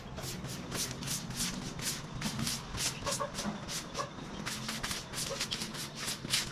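Broom sweeping leaves and storm debris, a quick steady run of short scratchy strokes about three to four a second.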